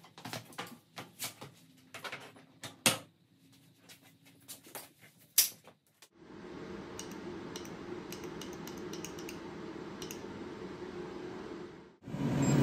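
Flexible ducting being dragged and handled across a concrete floor: light clattering knocks and scrapes. About six seconds in this gives way to a steady fan whir, which stops suddenly near the end.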